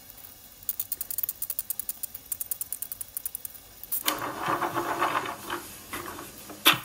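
Clamps being loosened and taken off a glued-up instrument body: a fast run of ratcheting clicks, then a denser clatter of clamps being handled, and one sharp knock near the end.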